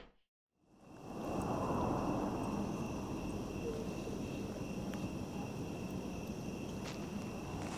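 Silence, then night-time outdoor ambience fades in: insects trilling steadily, high and constant, over a low background hiss.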